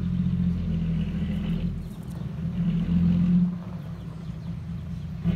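Six-wheel dump truck's diesel engine running at low speed, its note swelling about three seconds in and then dropping back.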